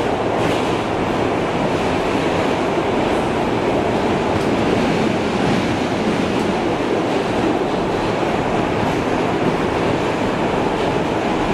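New York City subway train running at speed through a tunnel, heard from inside the car: a steady, unbroken rush of wheel and running noise with no clicks or changes in pace.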